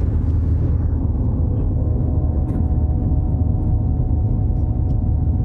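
Steady low rumble of a car being driven, heard from inside the cabin, with a high hiss at the start that fades within the first second.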